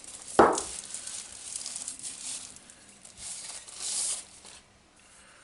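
Product packaging being handled: a single knock about half a second in, then rustling and rubbing that fades out near the end.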